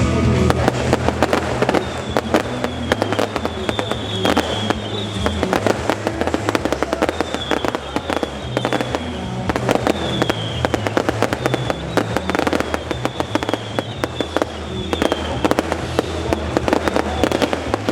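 Fireworks going off in rapid succession, a dense run of bangs and crackles, with music playing underneath.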